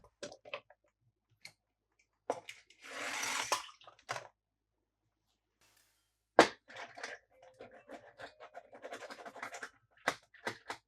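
Handling of plastic toys and packaging: scattered clicks and taps, a rustle, then a sharp click followed by a quick run of small clicks and rattles.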